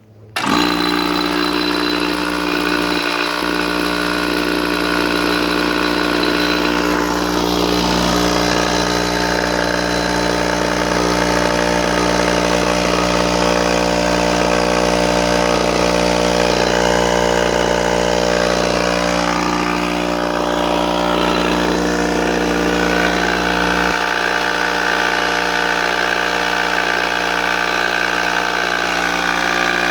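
A Charge Air 5 hp, 20-gallon air compressor starting up about half a second in and then running steadily and loudly. Its low hum drops away and its tone shifts somewhat near the end.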